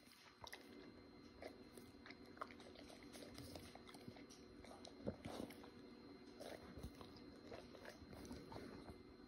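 A cocker spaniel licking and mouthing a hard rubber chew toy: faint wet licks and small scattered clicks, with one louder click about five seconds in.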